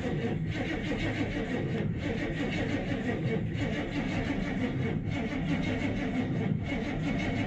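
Starter cranking a square-body GM pickup's engine slowly and steadily without it firing. The owner puts the slow cranking down to a bad connection at the starter.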